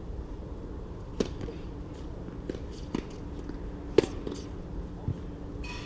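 Tennis rally: sharp pops of rackets striking the ball, the loudest about one second in and about four seconds in, with fainter knocks between them, over a steady low hum.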